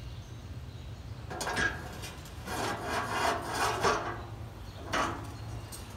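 Steel parts of a swing grill scraping against each other as a grate and its fittings are worked on the upright steel post: three rasping scrapes, the longest in the middle.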